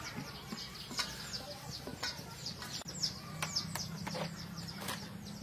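Chickens calling: a run of short, high, falling peeps, a few a second, with a few sharp knocks among them.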